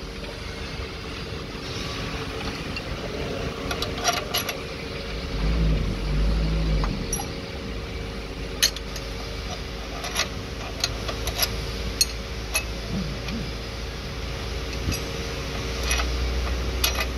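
Steel combination spanner clinking on the pressure-plate bolts of a truck clutch as they are turned: sharp metallic ticks at irregular intervals, every second or two. Under them runs a steady mechanical hum, with a low rumble for about a second and a half around six seconds in.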